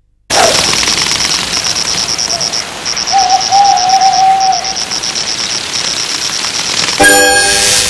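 Night-time woodland ambience: a dense hiss with insects trilling in rapid high pulses, broken into runs. About three seconds in, a single wavering hoot is held for about a second and a half. Music with stacked tones comes in near the end.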